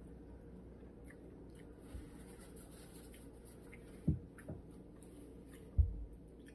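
Faint sounds of someone eating a sub sandwich: small clicks and a few soft low thumps, the louder two about four seconds in and near the end.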